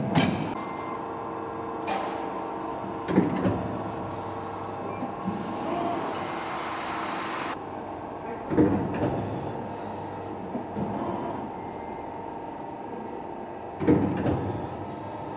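Upstroke press brake running: a steady hum of several held tones, with four clunks a few seconds apart, each followed by a short hiss.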